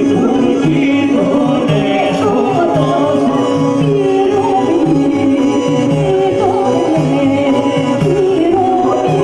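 Live Northern Epirote folk music: a clarinet and a woman's voice carry the wavering melody over a sustained drone, with a def frame drum keeping a steady beat.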